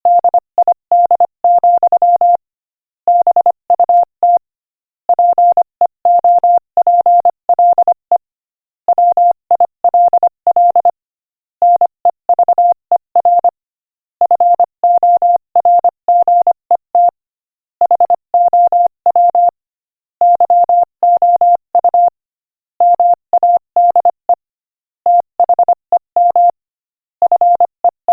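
Morse code at 25 words per minute: a single mid-pitched beep keyed rapidly on and off into dots and dashes, in groups separated by short silent gaps between words.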